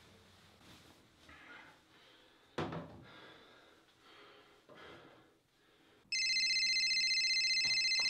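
A dull thud about two and a half seconds in, then a phone ringing with a loud electronic trill for about two seconds near the end.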